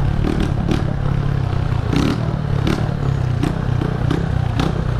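Honda CG125 single-cylinder four-stroke motorcycle engine running on a straight-through exhaust while riding, with about eight sharp cracks scattered through it.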